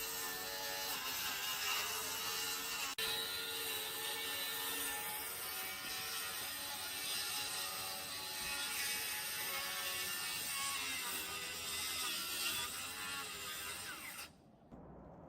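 Hand-held power tool running steadily, a mechanical whir with a slightly wavering pitch, cutting off abruptly near the end.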